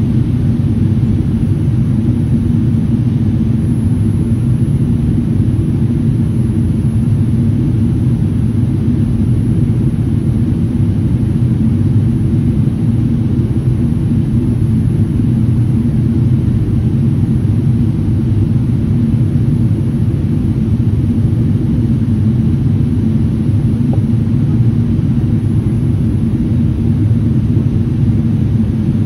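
Jet airliner cabin noise in flight, heard from inside the cabin while descending to land: a deep, steady rumble of engines and airflow that stays even throughout, with a faint high whine above it.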